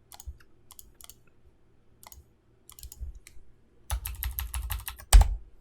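Computer keyboard and mouse clicks: scattered single clicks, then a quick run of keystrokes about four seconds in, ending with one sharper click.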